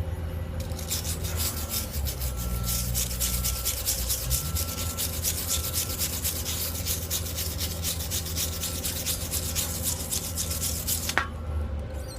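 TIG welding arc on 316L stainless steel pipe, a steady crackling hiss that strikes up about a second in and cuts off sharply near the end, over a steady low hum.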